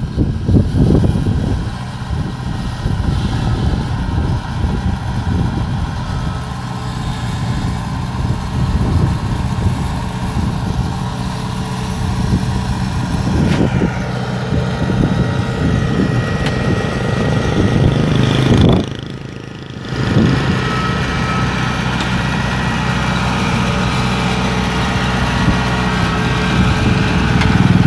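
Rice combine harvester's diesel engine running steadily with a deep hum, as the machine is driven up onto a truck. There is a single clank about halfway through, and the sound drops away briefly for about a second later on.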